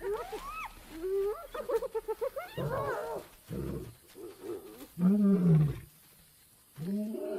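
Hyenas yelping and whooping in high, wavering calls, then an old male lion roaring twice in loud low calls, about five seconds in and again near the end, driving the hyenas off an impala kill.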